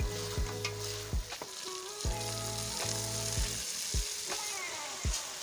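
Diced potatoes and tomato masala sizzling in an aluminium pot as a wooden spoon stirs them. Chopped fenugreek leaves are tipped into the pot near the end. Background music with a steady beat plays underneath.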